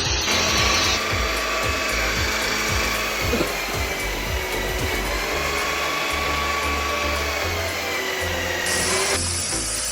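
Electric drill running steadily, its motor whine shifting slightly in pitch, over background music.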